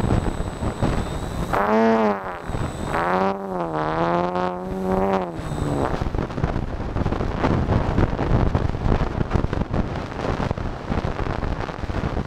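Wind rushing over the RC airplane's onboard camera, with the electric motor and propeller giving a buzzy whine that dips and rises in pitch between about two and six seconds in.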